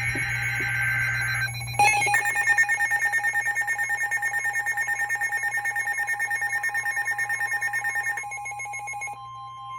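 Emergency Alert System signal on a NOAA Weather Radio: a short screechy burst of SAME digital header data, then a weather radio receiver's alarm beeping rapidly for about six seconds. Near the end the steady 1050 Hz warning alarm tone comes in, signalling a new severe thunderstorm warning.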